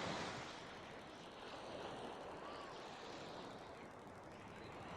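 Faint, steady outdoor background noise with no distinct event.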